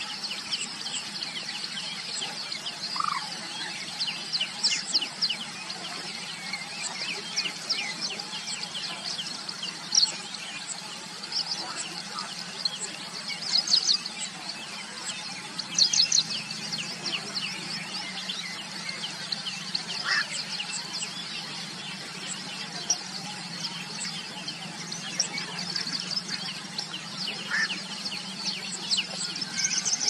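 Chorus of many small birds chirping in quick, high-pitched notes, with a few lower single calls scattered through, over a steady low hum.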